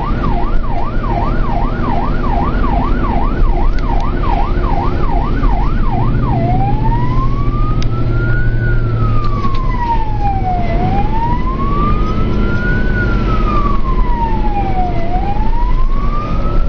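Fire engine siren heard from inside the cab: a fast yelp, about two rises and falls a second, switches about six seconds in to a slow wail rising and falling roughly every four seconds, over the truck's engine running.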